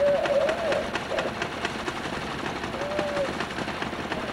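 Railroad motorcar (track speeder) running toward the listener along the rails, its small engine giving a steady rapid beat of exhaust putts.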